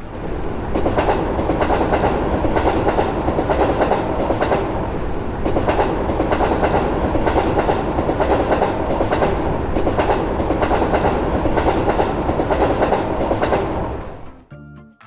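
Train passing, its wheels clattering over the rail joints in a steady clickety-clack; it swells up within the first second and dies away about a second before the end.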